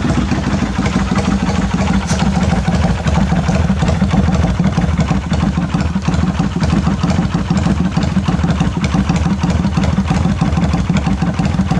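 Kawasaki Vulcan 400 V-twin idling steadily through a one-off custom silencer, its exhaust pulsing evenly.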